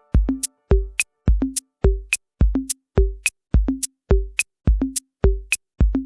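Drum machine beat playing alone: a kick drum with a short pitched knock and a sharp click, repeating in a steady pattern at about two hits a second.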